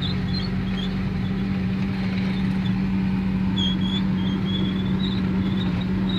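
An engine running steadily at a constant speed, with short high-pitched chirps over it between about three and a half and five seconds in.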